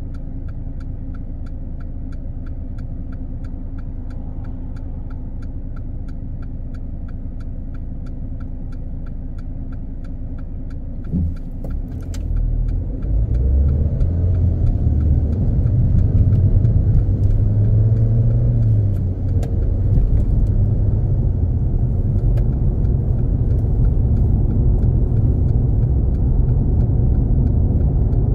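Car heard from inside, idling at a standstill with a regular ticking that stops about 12 s in. After a single knock about 11 s in, the car pulls away and accelerates: engine and road noise rise and stay loud as it drives on.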